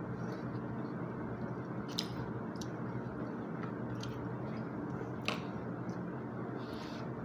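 A person chewing food, with a plastic spoon and fork clicking against a plastic meal tray: two sharper clicks, about two seconds in and just past five seconds, over steady background noise.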